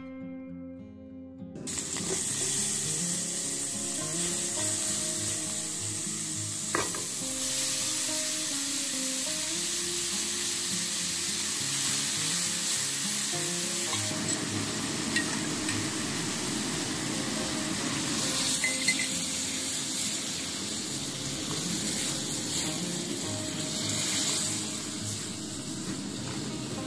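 Grated onion and garlic seasoning sizzling in hot oil in an aluminium frying pan, starting suddenly about a second and a half in, with the heat turned up to brown it. Later, shredded cooked chicken fries in the pan and is stirred with a silicone spatula.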